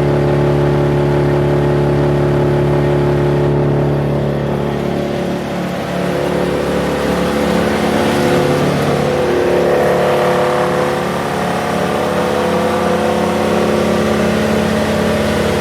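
Vermeer BC1000XL wood chipper's engine running steadily; about four to six seconds in its speed changes and the pitch shifts, then it settles into a new steady run.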